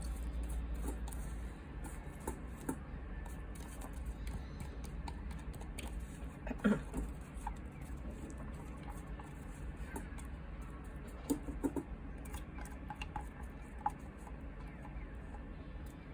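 Scattered light clicks and taps over a low steady hum, one a little louder about six and a half seconds in.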